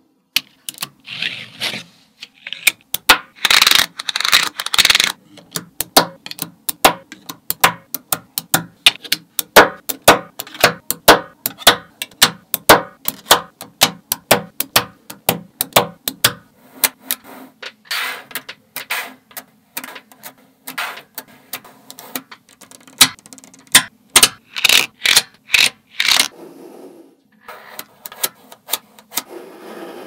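Small neodymium magnet balls clicking as they snap together and onto the ball structure: a fast string of sharp metallic clicks, several a second, with a few denser rattling clatters, near the start and again near the end, as clusters of balls are pressed and shifted into place.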